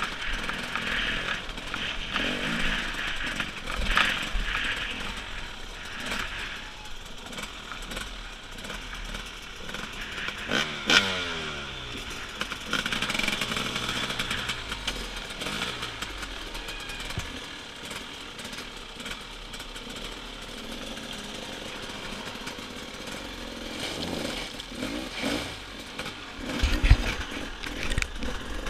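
Enduro motorcycle engine revving up and dropping back in bursts as the bike climbs over loose river rocks, with a few sharp knocks of the wheels striking stones.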